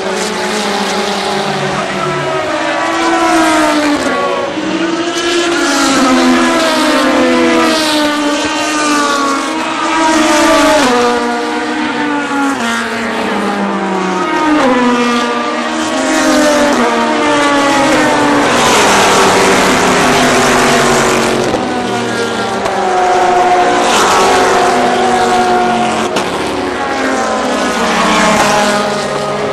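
A pack of endurance race cars going past one after another at the start of the race, many engine notes overlapping, each rising and falling in pitch as the cars pass.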